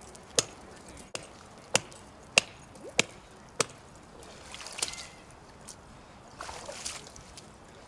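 Lake ice being hacked open by hand: six sharp strikes about every half-second to second, then water and loose ice sloshing in the hole twice.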